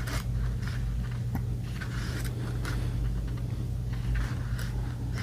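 Paper and card being handled: soft rustling with a few light taps, over a steady low hum.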